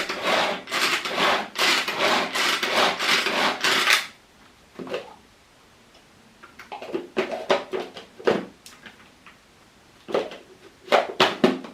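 Small kitchen chopper mincing onion, worked in a quick run of repeated strokes for about four seconds. After a pause come scattered clicks and knocks as the machine is handled.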